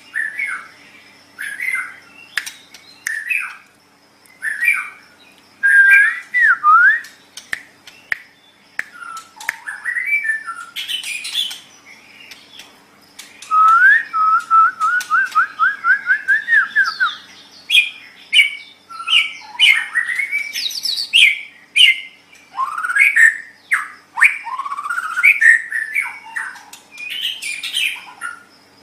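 White-rumped shama (murai batu) singing a varied run of loud whistled phrases that sweep up and down, broken by short pauses. About halfway through comes a rapid trill of repeated notes lasting a few seconds.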